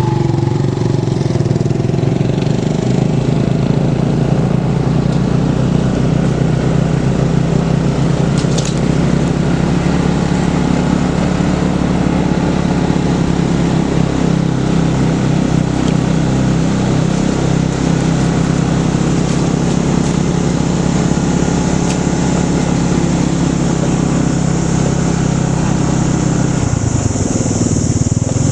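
A motor vehicle's engine running steadily while driving, with road and wind noise. The engine hum drops away about 27 seconds in.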